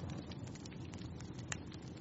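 Fire in a fireplace crackling: scattered sharp pops over a low steady rumble of the flames, with one louder pop about one and a half seconds in.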